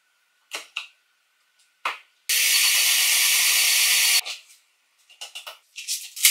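Cordless drill running for about two seconds as its bit bores into a pine board, starting and stopping abruptly. Before it come a few light clicks of the wooden case being handled, and after it a quick run of taps and clicks.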